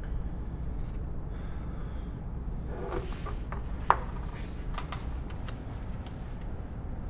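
Steady low room hum with a few light clicks and taps; the sharpest click comes a little before four seconds in.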